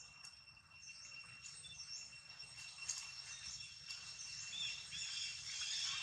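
Outdoor forest ambience: a steady high insect drone, with scattered short bird chirps that grow busier near the end and a few faint clicks.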